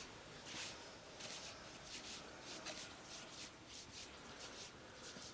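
Soft, quiet rubbing or brushing strokes close to the microphone, short and irregular, about two or three a second, made by a hand in ASMR personal attention.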